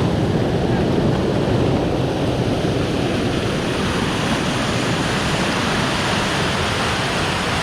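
River water rushing over rocks in small falls and cascades, a steady loud rush without a break.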